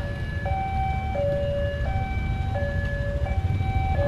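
Railway level-crossing warning alarm sounding a two-tone electronic chime. A higher and a lower note alternate, each held for about two-thirds of a second, signalling that the crossing gate is closing for an approaching train. Idling motorcycle engines rumble underneath.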